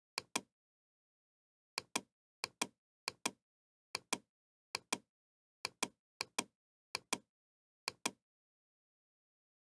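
Computer mouse button clicking: about ten quick pairs of sharp clicks at irregular intervals, with dead silence between them.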